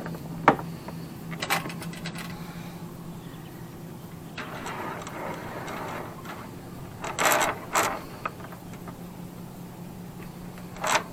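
Halyard rope being handled and pulled through the mast, heard as several short rustling, scraping bursts, the longest a little past halfway, over a steady low hum.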